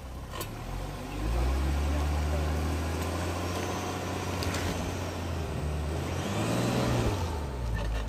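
Land Rover Defender's engine pulling under load as it climbs a muddy slope. The revs jump up about a second in and hold steady, then swell and fall away again near the end.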